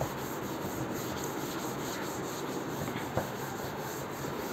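Board duster rubbing steadily across a chalkboard, wiping chalk off, with a light tap about three seconds in.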